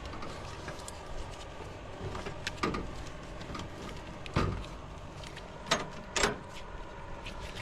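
A few sharp metallic clinks and knocks of hand tools and parts against the engine as the alternator is worked loose, the loudest three spread through the second half.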